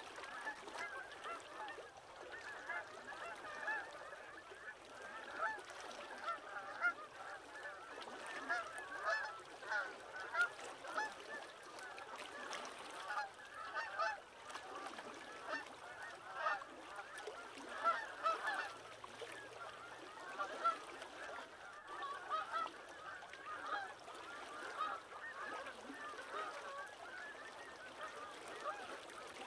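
A flock of water birds calling all at once, a continuous chatter of many overlapping short calls.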